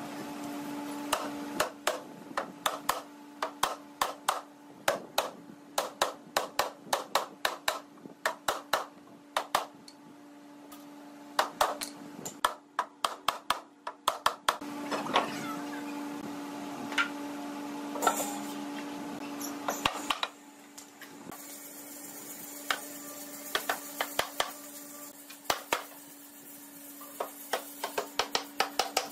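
A hammer strikes red hardwood boards, knocking the cabinet's partition joints together in quick runs of blows with short pauses. A steady low hum runs underneath.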